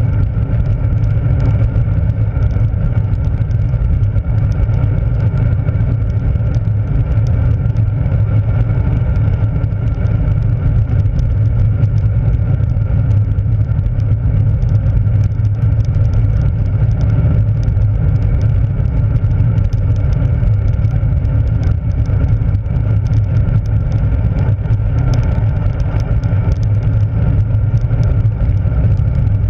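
Steady wind rush and tyre rumble on a handlebar-mounted camera's microphone as a road bike rolls along a sealed road, loud and low with a faint steady hum in it.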